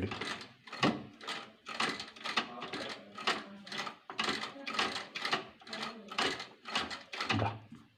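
Sewing machine running slowly on a test seam, its needle and shuttle mechanism clacking about twice a second, after a shuttle adjustment meant to cure skipped stitches.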